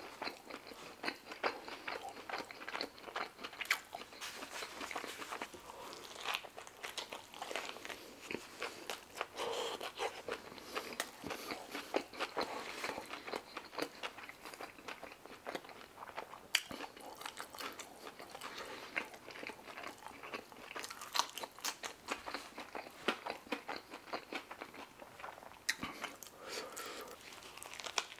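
A person chewing a mouthful of food close to a microphone, with many small, irregular mouth clicks throughout, and a fresh bite into a shawarma wrap near the end.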